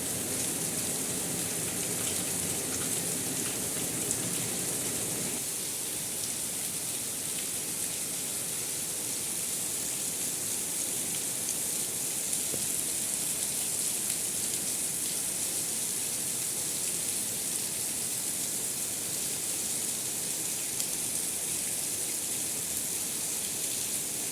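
Steady rain falling: an even, hissing downpour with scattered faint drop ticks. A lower-pitched part of the rain noise drops away about five seconds in, leaving mostly the high hiss.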